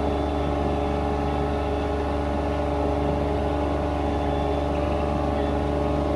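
Ditch Witch SK800 mini skid steer's engine running steadily at constant speed.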